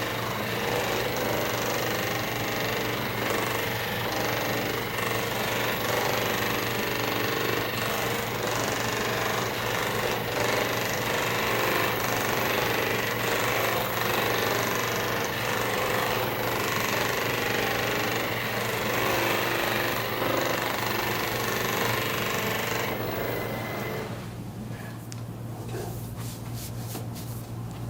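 Percussive massage gun running against a patient's body with a steady rapid hammering buzz. It drops off and goes quieter about 24 seconds in.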